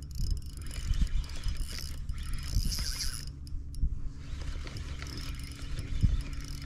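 Fishing reel being wound in against a hooked, fighting fish: a steady mechanical whirr of the reel's gears with many small clicks and knocks.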